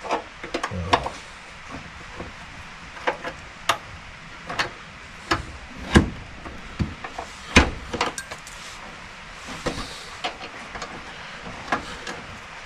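Scattered sharp clicks and knocks of hand tools and mounting hardware as a truck fender is shimmed and bolted, with two louder knocks about six and seven and a half seconds in.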